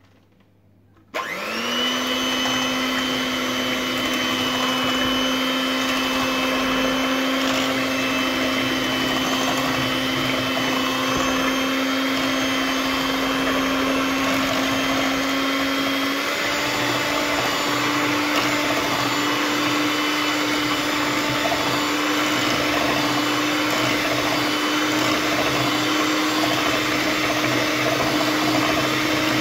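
Electric hand mixer switched on about a second in, its beaters whisking eggs and oil in a stainless steel bowl. The motor runs with a steady whine that steps up in pitch about halfway through.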